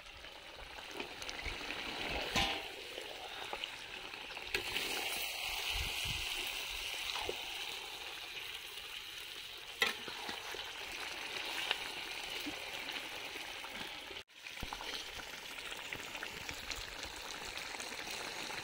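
Kadhai chicken sizzling steadily in a large iron kadhai over a wood fire, with a wooden spatula scraping and stirring through it now and then.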